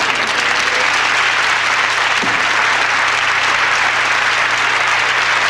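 Studio audience applauding steadily after the final punchline of a sitcom scene.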